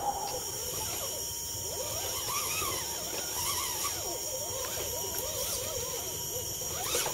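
Electric motor of a scale RC crawler truck whining as it crawls over rocks, the pitch rising and falling with the throttle, over a steady high-pitched whine.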